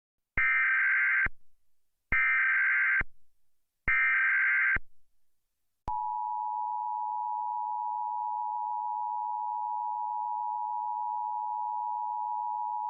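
Emergency Alert System header: three short bursts of warbling digital data tones, each just under a second long, then about a second later a long steady attention tone. Together they announce an emergency alert, here a flash flood warning.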